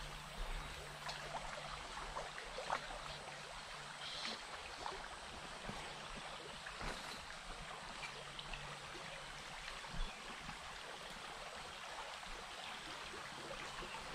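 Shallow creek riffle running over rocks, a steady babble of flowing water, with a couple of brief knocks.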